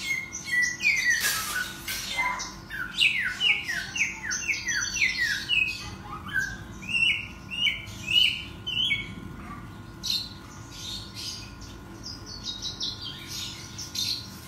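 Caged samyong songbird singing in lively runs of quick, downward-sliding whistled notes, several a second, with scattered chattering calls between the phrases.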